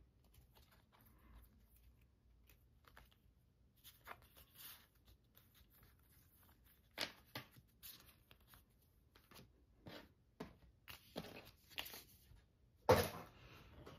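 Photocards being handled and shuffled by hand: faint rustles and light clicks of card against card, with a sharper tap about seven seconds in and the loudest one about 13 seconds in, as cards meet the wooden desk.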